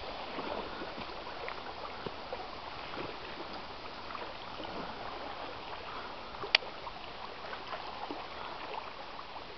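Small waves lapping and trickling against a rocky lakeshore: a steady wash of water with little splashes through it, and one sharp click about six and a half seconds in.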